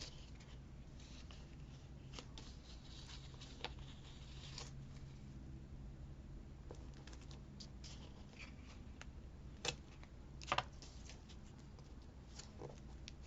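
Faint rustling of paper and small clicks and taps as a paper bird cutout and washi tape are handled on a planner page, with two sharper clicks about ten seconds in.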